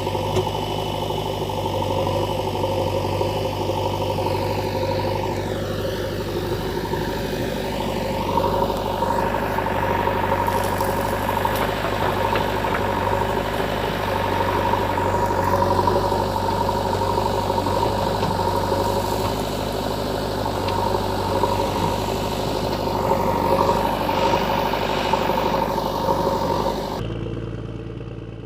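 An engine running steadily, with a few rising and falling swings in pitch several seconds in; the sound drops away near the end.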